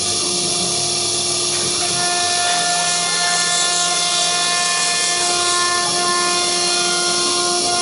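CNC engraving router running and cutting into WPC board: a dense, steady machining noise with several whining tones, and more tones join about two seconds in.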